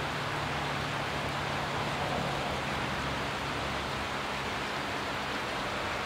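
Shallow creek water rushing steadily over rocks in a riffle, an even, continuous rushing.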